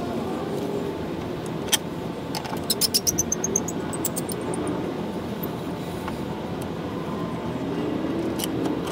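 Small metal hardware from the tail light clicking and clinking in the hands, with a quick jingling run about three seconds in and a few single clicks before and after.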